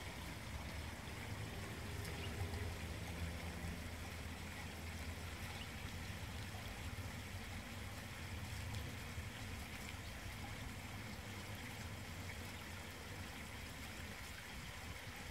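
Steady low background rumble of outdoor ambient noise, with no bird call heard.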